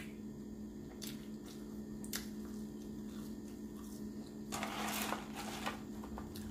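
Soft chewing of french fries with a few faint clicks, then about four and a half seconds in a second-long rustle of the paper fry carton as a hand reaches into it. A steady low hum runs underneath.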